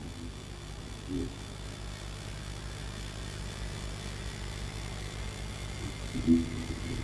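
Low, steady droning rumble of a dark horror soundtrack, with a brief wavering swell about a second in and a louder one near the end.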